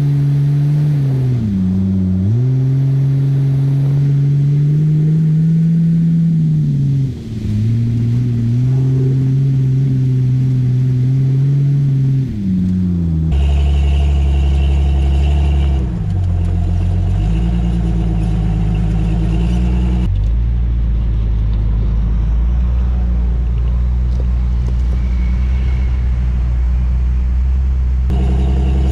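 A vehicle engine running steadily. Its pitch drops and climbs back about three times in the first half, then gives way to a lower, steady rumble.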